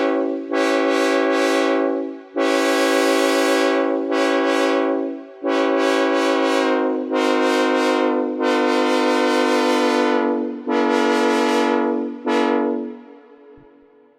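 Synthesized Nathan K5HL five-chime train horn, labelled a 3rd-generation Union Pacific K5HL, sounding a string of blasts of mixed length with short breaks between them. The last blast fades out about a second before the end.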